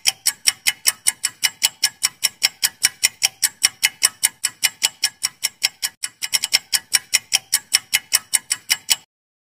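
Clock-ticking sound effect under a quiz countdown timer: an even run of sharp ticks, about five a second, with a brief stutter of quicker ticks about six seconds in, stopping shortly before the end.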